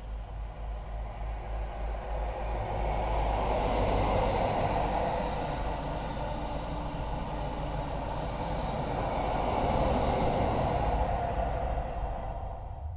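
Network Rail's New Measurement Train, a Class 43 HST, passing on the sea-wall line: a steady rumble of diesel power cars and wheels on rails that swells about four seconds in and again around ten seconds, heard through a live webcam's microphone.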